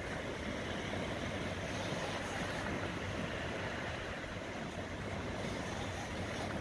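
Steady wind buffeting the microphone over the wash of small surf breaking on the beach.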